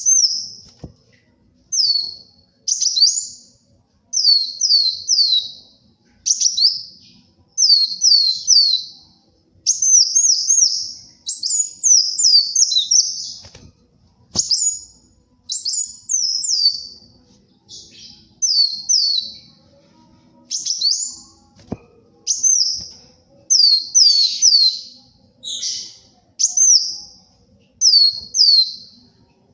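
A kolibri wulung, an Indonesian sunbird, singing in vigorous full song: short clusters of two to four high, sharp, quickly sweeping notes, repeated about once a second.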